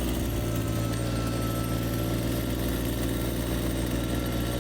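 Engine of a heavy earth-moving machine running steadily at an even low pitch, with a faint high whine held over most of it.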